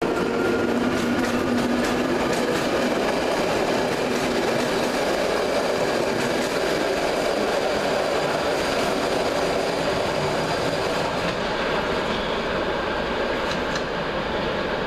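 Locomotive-hauled passenger train rolling past along the station track, wheels clicking over rail joints above a steady rumble. A droning tone sounds in the first few seconds, and the sound eases slightly near the end as the last coach moves away.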